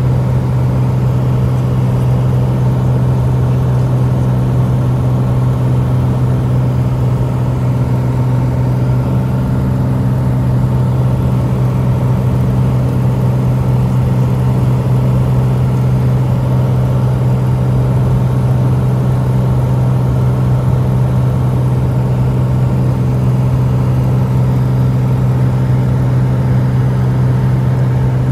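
Steady drone of a SOCATA TB20's six-cylinder Lycoming engine and propeller in cruise flight, heard inside the cabin: one strong low hum with overtones, holding even throughout.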